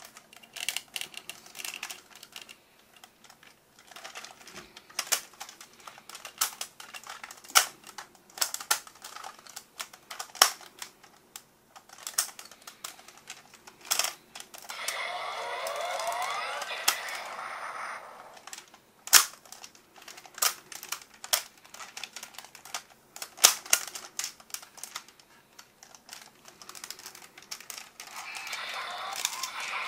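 Plastic clicks and snaps as the parts of a Go-Onger Engine Bus-on transforming toy are moved and locked into place. The clicks are irregular and come one at a time, broken twice by a longer grating sound.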